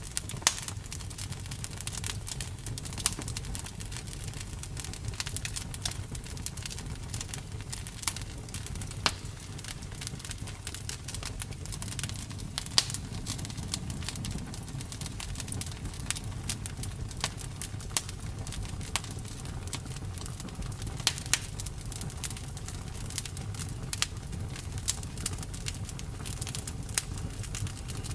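Campfire burning with a steady low rumble and frequent irregular crackles and pops from the burning wood.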